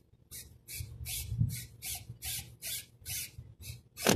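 Short hissing scraping strokes repeated about two and a half times a second, with a loud knock near the end.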